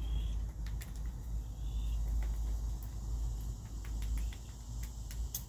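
Sandhill cranes' bills tapping on concrete as they peck up corn kernels: irregular sharp clicks, coming more often toward the end, over a low steady rumble.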